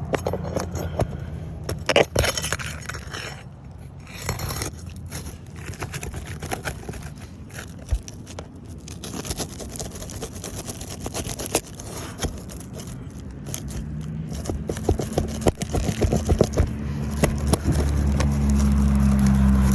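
Metal tool scraping and prying under old, brittle 3-tab asphalt shingles as roofing nails are worked loose, with many irregular scrapes and clicks. A steady engine hum rises in the last few seconds.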